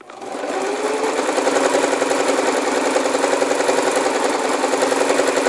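Elgin Genius JX-4000 electric sewing machine stitching through cotton fabric. Its motor speeds up over about the first second, then runs at a steady pace.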